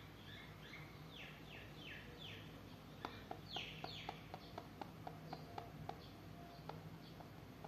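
Faint bird song: a quick run of falling chirps, a second short run, then a string of short sharp notes about three a second, over a low steady hum.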